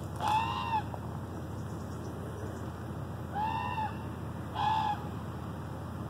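Three short pitched calls from an unseen animal, each arching up and then down in pitch. One comes just after the start, and two shorter ones come close together a little past the middle. The listener takes the caller for a bird of prey, possibly an eagle, but the species is unidentified.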